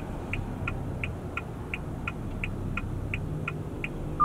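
Haval Dargo turn-signal indicator ticking steadily, about three ticks a second, over a low engine and cabin hum. The indicator is on to tell the automatic parking system which side to search for a space.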